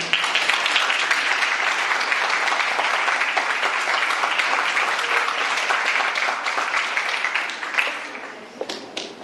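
Audience applauding, many hands clapping steadily, then thinning out and dying away about eight seconds in.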